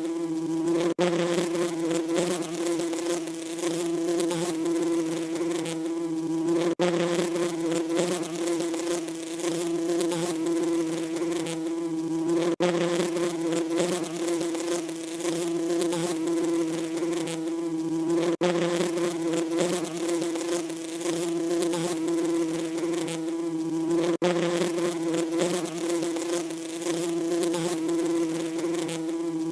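Bees buzzing: a steady, even drone with a clear pitch, briefly broken about every six seconds.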